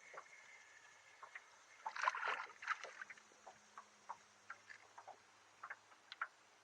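Faint scattered ticks and small splashy taps of water against a small boat, busiest about two seconds in.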